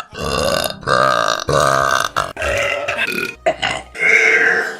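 A young woman burping loudly, a rapid run of about six burps one after another, each roughly half a second long.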